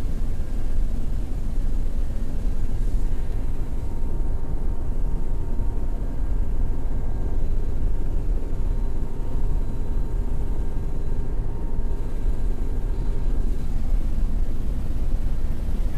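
Steady loud rumble of a military transport aircraft's engines heard from inside the troop cabin in flight, with a faint steady whine above it.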